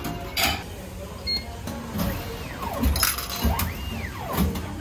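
Japanese meal-ticket vending machine in use: a button-press click, then a short beep about a second in, as the money and ticket mechanism works. In the second half come two sweeping tones that each rise and fall.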